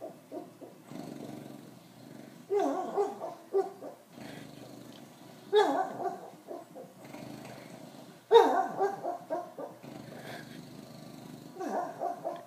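Bulldog vocalizing in its sleep while dreaming: four bouts of pitched whining and grumbling, about three seconds apart, each falling in pitch.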